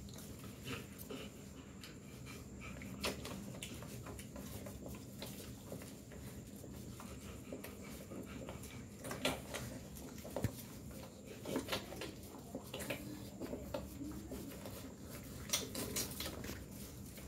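Rottweiler puppies nursing from their mother: faint shuffling and suckling with scattered sharp clicks and smacks, and a few brief puppy sounds.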